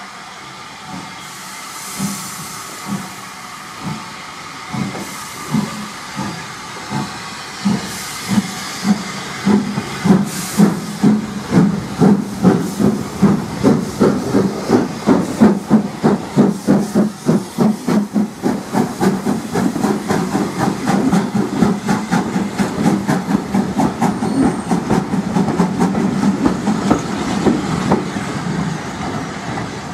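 Southern Railway U class steam locomotive No. 1638 pulling away tender-first: its exhaust chuffs start about one a second and quicken to a fast, steady beat as it passes, with steam hissing.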